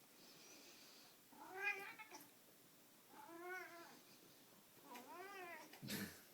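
Domestic cat yowling at a string toy in intense play, three drawn-out calls that each rise and then fall in pitch, the first the loudest. A sharp knock comes just before the end.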